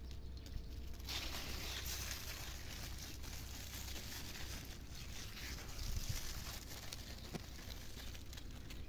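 Steady rustling of garden plant leaves.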